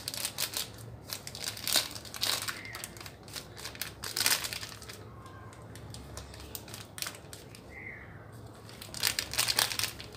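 Crinkling of a plastic spice packet as chaat masala is shaken out of it onto a steel spoon, in irregular clusters of crackles that thin out in the middle and pick up again near the end.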